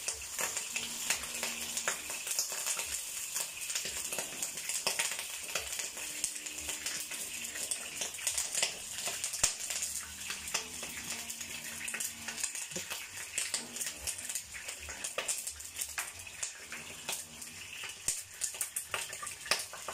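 Vegetable oil heating in a pan on a gas burner, sizzling steadily with fine irregular crackles as it comes up to temperature for frying.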